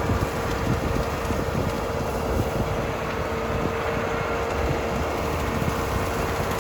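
Tractor and bale processor running together, a steady machine drone with one constant hum over a low rumble. The processor is feeding out a bale that is half frozen.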